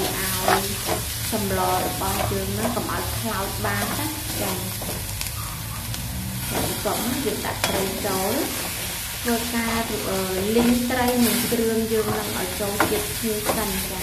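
Metal ladle stirring and scraping kroeung spice paste as it fries in a steel wok, with pieces of fish being turned through it: a continuous scraping sizzle with a few sharper clinks of ladle on wok.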